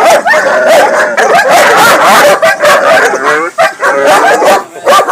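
Several Dogo Argentino dogs barking and yelping loudly at once, the barks overlapping almost without a break and thinning out near the end.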